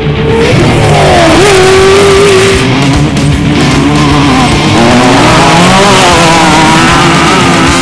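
Off-road race vehicle engine revving hard, its pitch climbing and dropping repeatedly with the throttle, mixed with rock music.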